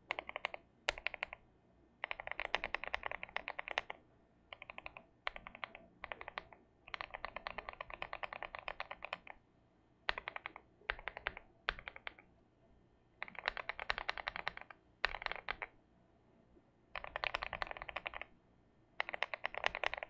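Linear mechanical keyboard switches (Keychron Milky Yellow Pro, Keychron Yellow Pro SMD and lubed Durock POM) typed on a Keychron Q1 keyboard, in a dozen or so short runs of rapid keystrokes separated by silent gaps.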